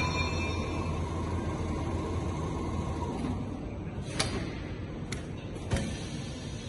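Richpeace automatic sewing machine running, its sewing head stitching through padded sofa fabric with a steady mechanical hum. Two short sharp clicks come about four and six seconds in.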